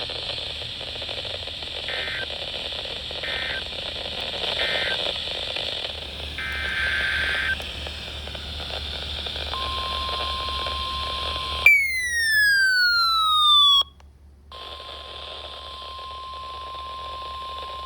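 Weather radio static, then a few short electronic data bursts, then the steady 1050 Hz NOAA Weather Radio warning alarm tone. The tone is cut by a loud falling electronic sweep and a brief dropout about twelve seconds in, then sounds again over the hiss.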